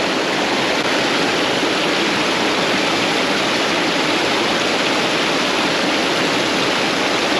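Water of a small stream running steadily, a constant loud sound of running water close by.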